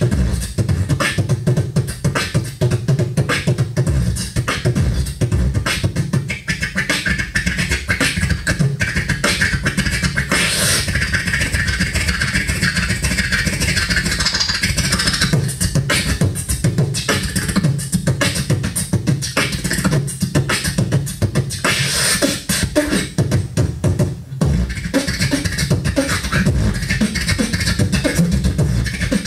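Beatboxing into a close-held handheld microphone: a fast, steady run of percussive vocal hits and clicks over a strong bass, with a brief pause about 24 seconds in.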